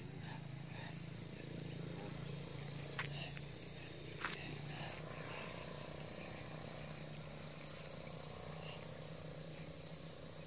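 Insects trilling steadily in the surrounding vegetation, a continuous high-pitched drone that swells in about a second and a half in, with two short clicks about a second apart near the middle.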